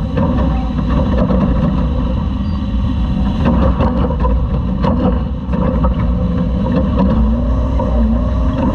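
Engine of a Class 2000 Toyota off-road race truck running hard, heard on board over the heavy rumble and rattle of the truck at speed off road. A few sharp knocks come in the middle, and the engine note rises and falls near the end.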